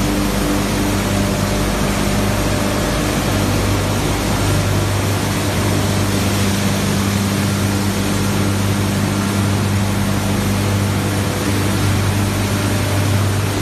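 Machinery of a PE/PP plastic washing line running: a steady hum with an even rush of noise over it.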